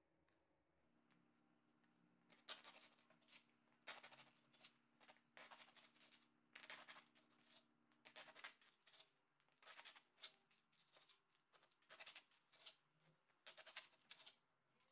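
Knife sawing through a stale baguette on a wooden cutting board: short scraping strokes, about two a second, in runs with brief pauses between slices. They start about two and a half seconds in.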